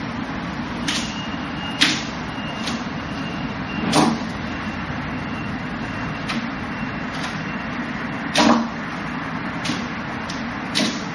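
Hands and forearms striking the wooden arms and trunk of a Wing Chun wooden dummy (mook jong): about nine sharp wooden knocks at irregular intervals, with two heavier, duller thuds about four and eight and a half seconds in. Under them runs a steady hiss.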